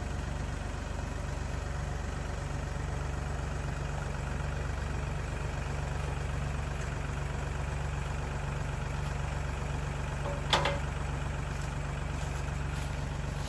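An engine idling steadily, with a single sharp clank about ten and a half seconds in.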